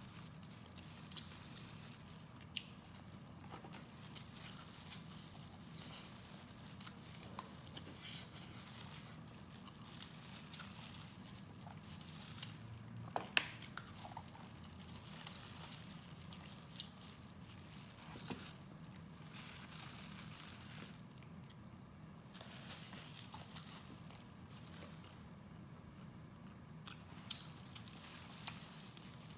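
Close-up eating sounds: biting and chewing braised pork knuckle, with small wet mouth clicks and the crinkle of disposable plastic gloves handling the food. A few sharper clicks come a little before halfway.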